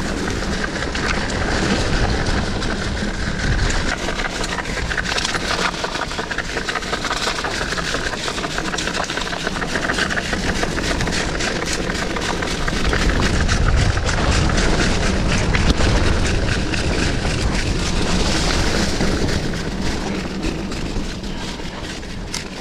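Mountain bike being ridden downhill on a wet dirt trail: a continuous rush of tyre and riding noise with constant rattling and knocking from the bike over the rough ground.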